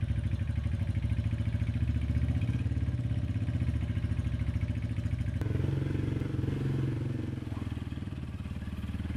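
Small Chinese-made motorbike's single-cylinder engine running with a fast, even pulsing, just after being started. About five seconds in the sound shifts lower and steadier as the bike moves off.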